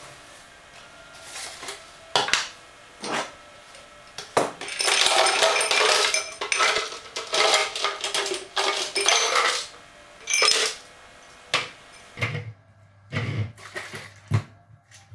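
Ice cubes clattering into a plastic sports drinks bottle for about five seconds, after a few separate knocks as the bottle is picked up and set down on the worktop. Near the end, a few dull knocks and taps as the bottle and a jar are handled on a table.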